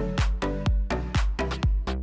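Background music with a steady, quick beat and a bass line.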